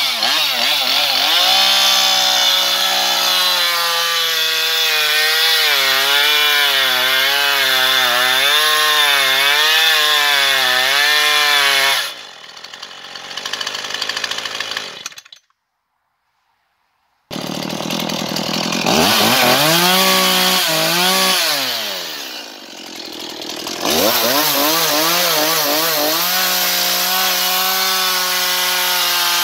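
A small high-speed engine running loud, its pitch wavering up and down about once a second. A little after ten seconds in it drops away, falls silent for a couple of seconds, then comes back with its pitch climbing and keeps running.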